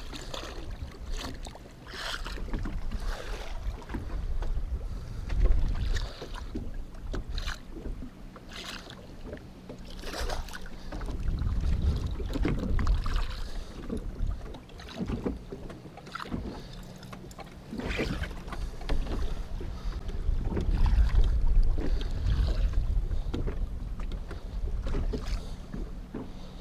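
Wind on the microphone and choppy water sloshing against the side of a fishing boat, with scattered knocks and clicks and a faint low steady hum through the first half.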